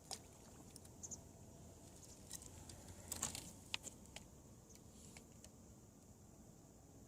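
Near silence with a few faint, sharp clicks and light rustling, most of them in a short cluster about three seconds in.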